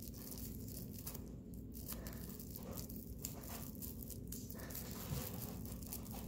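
Plastic-bag yarn (plarn) crinkling and rustling in short irregular scratches as a crochet hook draws loops through to work a chain.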